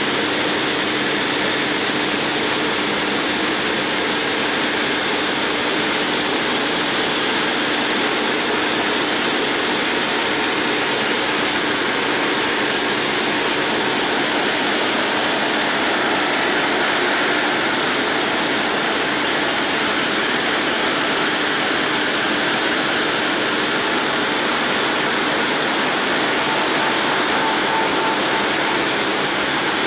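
Multi-blade granite block cutter's circular saw blades cutting through a granite block under a cooling water spray: a steady, unchanging hiss of blade and water with a faint low hum underneath.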